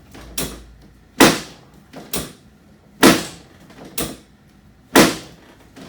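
Chiropractic drop table's hip section dropping under the chiropractor's thrust, a sharp knock about once a second with louder and softer knocks alternating. Each drop is a small adjustment of the patient's hip, moving it about a millimetre.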